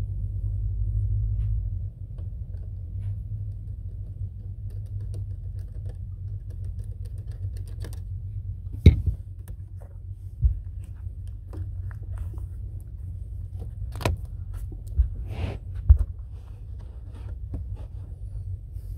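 Scattered clicks and knocks of a hand handling a rubber raw-water hose and its metal hose clamp on a boat engine, over a steady low rumble that is heavier for the first two seconds.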